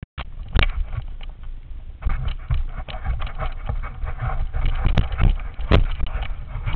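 Wind buffeting an action camera's microphone during a ride down a snowy slope, with irregular knocks and scrapes as the camera is jostled and snow slides under the rider; the sharpest knocks come about half a second in and twice near five to six seconds in.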